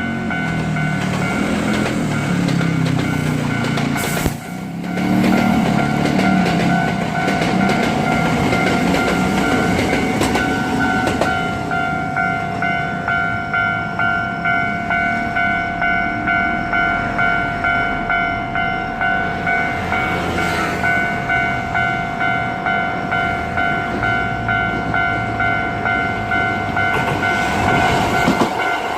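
Japanese level-crossing warning bell ringing with a steady, evenly pulsing ding, while a Hankyu Takarazuka Line electric train rumbles over the crossing. There is a sharp click about four seconds in.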